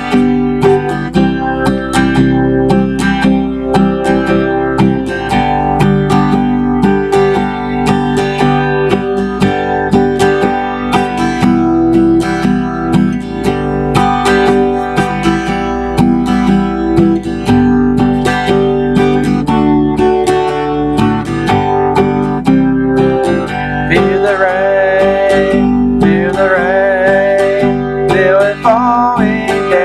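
Acoustic guitar strummed steadily through an instrumental stretch of a folk-style song. A wavering sung line without clear words comes in over it near the end.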